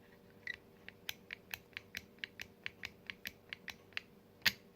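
Small plastic clicks from a fidget cube's glide joystick being worked back and forth, a steady run of about five clicks a second with one louder click near the end.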